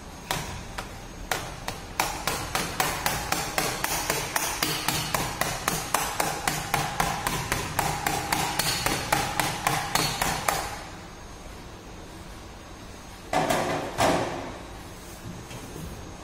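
A small hammer tapping on a plastic car bumper to work out a deformation in the plastic. A few scattered taps give way to a quick steady run of light taps, about four a second, that stops after about eight seconds. Two short, louder scuffing sounds come near the end.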